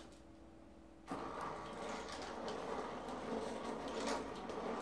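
Electric 1/8-scale RC buggy with a 5065 320kv brushless motor starting off suddenly about a second in: a loud mechanical whirr of motor and gear drivetrain under load, mixed with knocks and scraping as the buggy shoves into and climbs a pile of loose rubber tyres.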